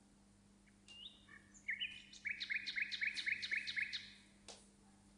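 A small songbird singing: a few separate chirps, then a quick trill of about eight repeated notes, around five a second, that stops about four seconds in. A faint steady hum runs underneath.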